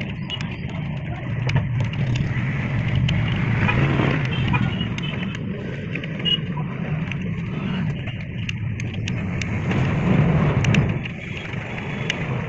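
Steady low rumble of a running motor vehicle that swells twice, with scattered light clicks and taps over it.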